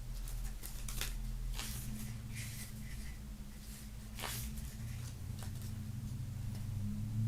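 Hands handling the box set's contents: scattered short rustles and light taps of paper and cardboard, over a steady low hum.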